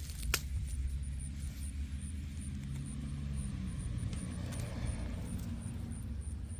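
A motor vehicle engine running as a low, steady hum, its pitch shifting after about four seconds, with a sharp click about a third of a second in and a few fainter clicks.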